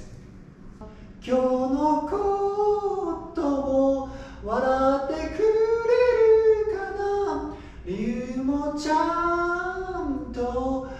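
Men singing a cappella into studio vocal microphones, long held notes beginning about a second in.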